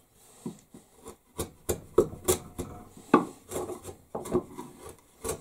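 A wood chisel paring and scraping across a wooden workbench top in about ten short, irregular strokes, clearing splinters from the board.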